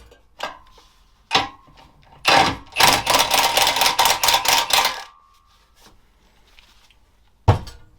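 Bursts of rapid, rhythmic strokes on the steel exhaust pipe as its welded end is cleaned up by hand, with a longer run of strokes in the middle and a single sharp knock near the end.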